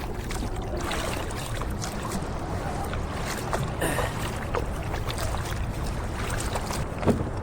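Water splashing and lapping around a fishing kayak on calm sea, over a steady low rumble.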